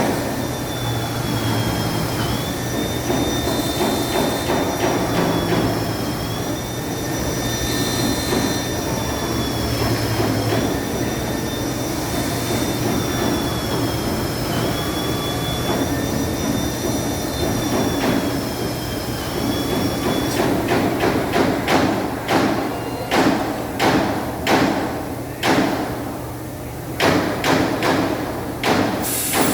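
Robotic wood-nailing and drilling station: a steady machine whine whose pitch dips briefly every few seconds, then, about two-thirds of the way through, a quick irregular series of sharp pneumatic nail-gun shots driving nails into the wooden bed.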